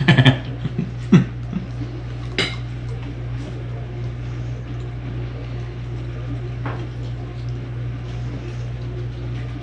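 A fork clinking against a dinner plate a few times in the first couple of seconds, over a steady low hum.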